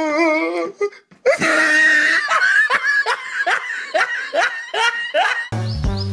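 Loud laughter: a high, wavering laugh, then after a short break a run of quick repeated bursts, about two or three a second. Music with a steady bass line comes in near the end.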